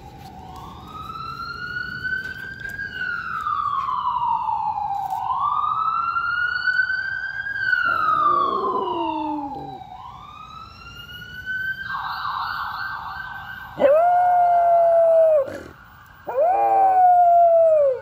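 An ambulance siren wailing, rising and falling slowly in pitch, with a dog howling along to it. A short, fainter howl comes about halfway through, and two long, loud howls of about a second and a half each come near the end, louder than the siren.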